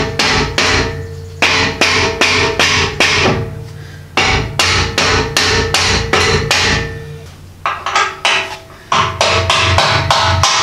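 Hammer blows on steel in four quick runs of several strikes each, every blow with a short metallic ring, as a rear leaf spring is tapped into its mount on the frame.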